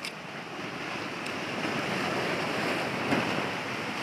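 Sea surf washing over rocks, the rush of water swelling over the first couple of seconds, with one short knock about three seconds in.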